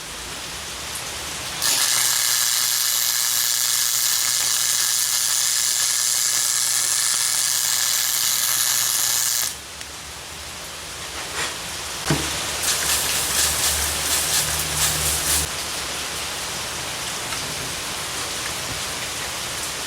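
MIG welder arc crackling and sizzling steadily for about eight seconds, starting about two seconds in and stopping suddenly, as a nut is welded onto a broken stud with the wire speed turned down. A shorter, rougher mechanical buzz with clicking follows a few seconds later.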